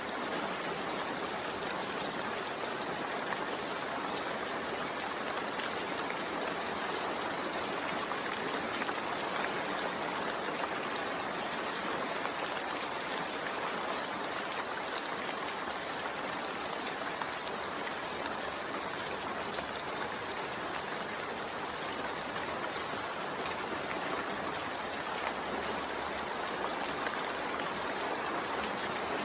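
Steady rain falling, a constant even hiss with fine pattering that does not change.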